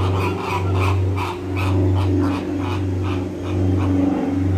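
Flamingos calling in a flock, a rapid chatter of short goose-like honks about three a second, over a loud low hum that swells and fades about once a second.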